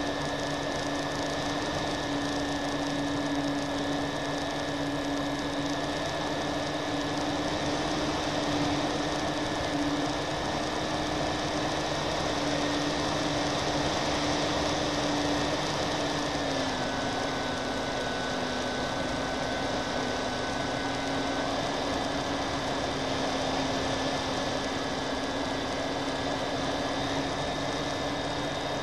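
Twin motors and propellers of an FPV model airplane, heard from the onboard camera: a steady whine over rushing air, dropping a step in pitch a little past halfway as the motors slow.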